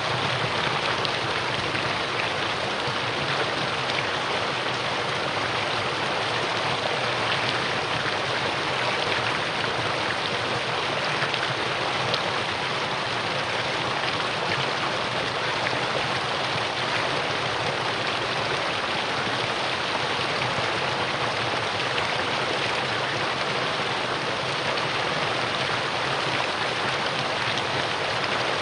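Mountain stream running over rocks in a steady, unbroken rush of water.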